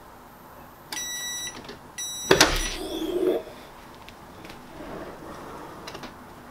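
WALAPress clamshell heat press's timer beeping twice as the press time runs out, then a loud clunk with a brief metallic rattle as the handle is released and the upper platen swings open, followed by soft rustling.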